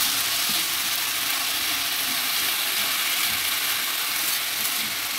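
Finely chopped potatoes sizzling steadily in hot oil in a frying pan, stirred and turned with a spatula.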